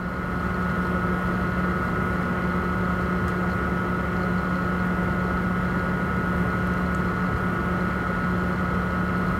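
Steady machine hum with a constant low tone and a fainter, higher whine.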